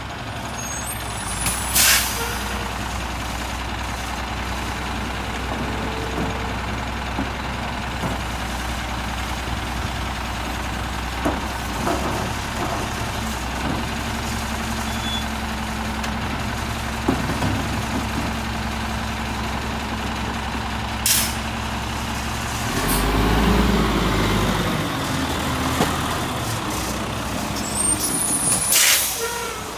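Garbage truck's diesel engine running steadily, with three short, sharp hisses of air brake release: about two seconds in, around twenty-one seconds, and near the end. The engine rises briefly in level about twenty-three seconds in.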